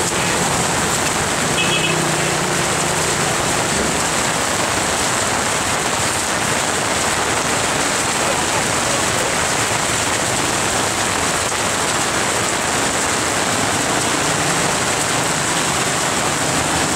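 Heavy rain falling steadily in a continuous downpour.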